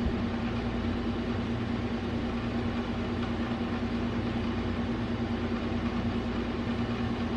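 Steady background hum of a running appliance or machine, with a constant low tone and a low rumble that do not change.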